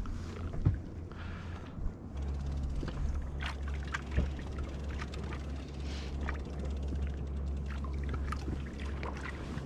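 Water slapping and gurgling against the hull of an inflatable boat, with scattered small knocks and clicks. A steady low rumble sets in about two seconds in.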